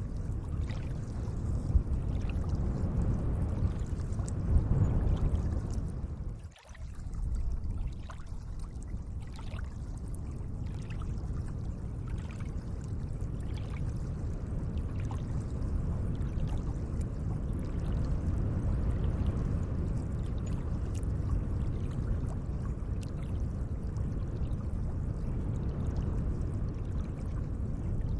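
Gentle lake water, a steady trickling wash with faint light ticks over it; the level drops sharply for a moment about six and a half seconds in.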